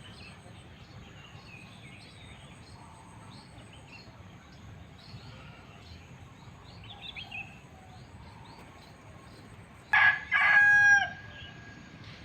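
A rooster crowing once, about ten seconds in: a short opening note then a longer held one, by far the loudest sound. Small birds chirp faintly throughout.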